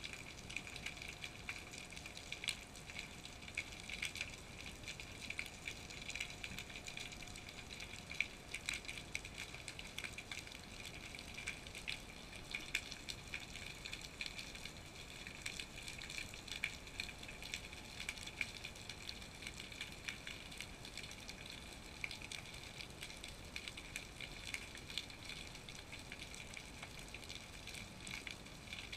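Underwater ambience picked up by a GoPro in its waterproof housing: a steady hiss full of small crackles and clicks, with a faint steady tone in the first few seconds.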